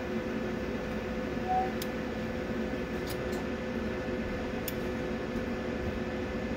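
Steady electrical hum from bench equipment, with a short beep about a second and a half in and a few faint ticks after it.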